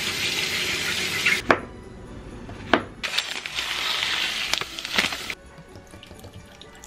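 Kitchen tap running into a stainless steel sink as a zucchini is rinsed under it. The sound cuts off after about a second and a half and there are a few knocks. About three seconds in comes a second stretch of steady pouring, dry rice poured from a bag into a pot.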